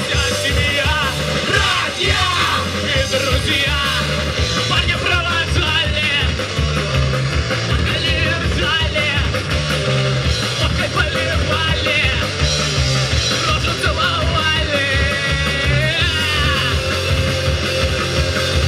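Punk-style rock song with yelled and sung vocals over a steady, driving beat.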